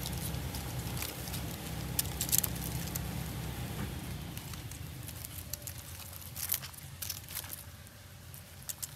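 Hands pulling apart the matted roots of rooted sour orange cuttings in loose potting soil: rustling and crackling of soil and fine roots, with scattered snaps, densest about two seconds in and again after six seconds.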